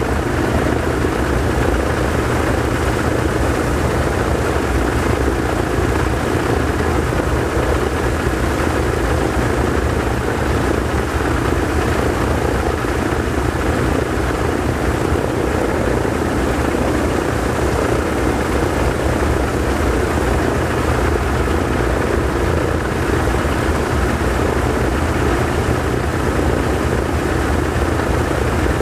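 Both radial engines of a PBY Catalina amphibian, Pratt & Whitney R-1830 Twin Wasps, running steadily on a ground engine run, their three-bladed propellers turning. The sound is loud and even, with no change in speed.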